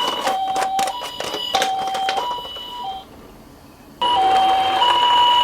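A toy ambulance minicar's electronic two-tone siren, switching between a lower and a higher note about every half second, with plastic clicking and clattering over the first two seconds. The siren stops about three seconds in and starts again, louder, a second later.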